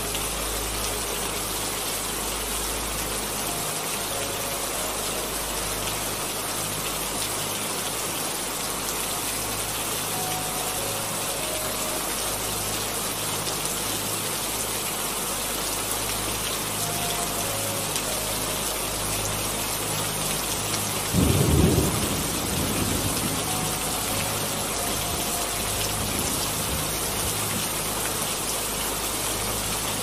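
Steady rain falling, with a short crack of thunder about twenty seconds in that fades into a low rumble.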